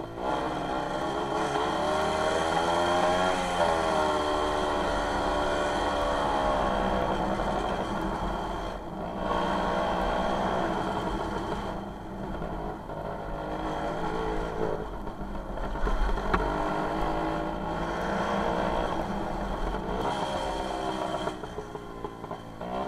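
WSK 125 motorcycle's two-stroke single-cylinder engine running under way, revving up and down as the throttle opens and closes, with a few short drops in revs along the way.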